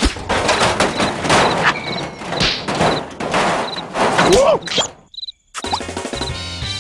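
Animated cartoon sound effects: a rapid scuffle of thumps and knocks mixed with buzzing insect noise and squeaky, gliding character vocal sounds. The sound cuts out for about half a second around five seconds in, then picks up again.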